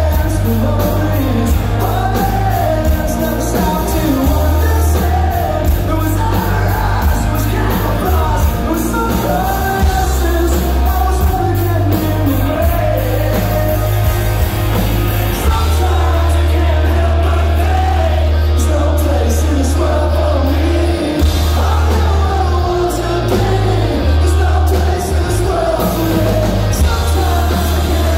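Live punk rock band playing loud: distorted electric guitars, bass and drums with a male lead vocal, the low end heavy and booming.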